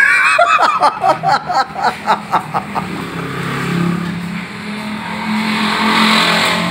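A motor vehicle engine running and going past, swelling to its loudest near the end. It is preceded by a quick run of sharp pulses in the first two and a half seconds.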